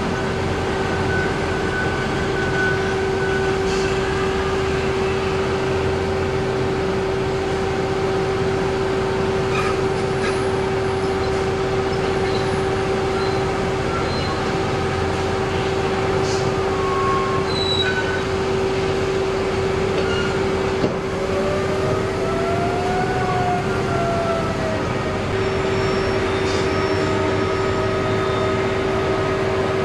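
Heavy mining machinery at a loading face, a BelAZ 75710 dump truck and a P&H electric mining shovel, running with a steady hum and a constant tone. About two-thirds of the way through, a motor whine rises and falls once as the shovel swings its bucket over the truck.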